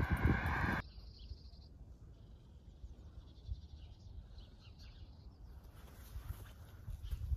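Footsteps on a paved footpath under a steady droning tone, cut off abruptly under a second in, then quiet open-air ambience with a few faint high chirps.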